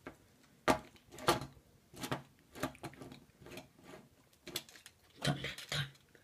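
Toy die-cast monster truck being handled and set down on a wooden tabletop: a series of light, irregular knocks and clacks, about one every half second to a second.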